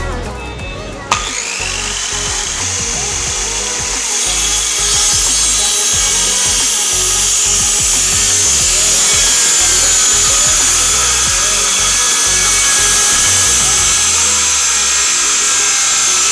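A Bitec CM R508 YH 950-watt circular saw with a 185 mm blade starts sharply about a second in, then runs steadily and loudly as it rips a wooden board along a parallel guide. Background music plays underneath.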